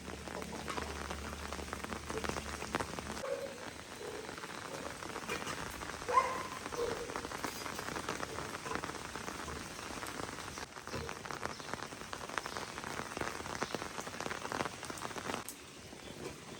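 Heavy rain falling, with many separate drops striking a surface and one sharper tap about six seconds in. A faint low hum underneath stops about three seconds in.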